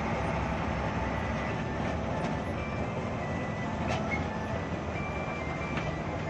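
Hino AK8 bus's turbocharged diesel engine running steadily under way, with tyre and road noise on a wet road, heard from inside the cabin. There is a light click about four seconds in.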